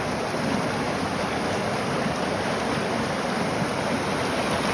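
Fast-moving mountain stream rushing over rocks in small rapids: a steady, even rush of water, heard close to the water's surface.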